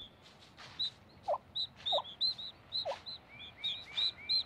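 Wild turkey poults peeping in many short, high chirps, with a few lower calls from the hen, three of them about a second apart, as she leads her days-old brood.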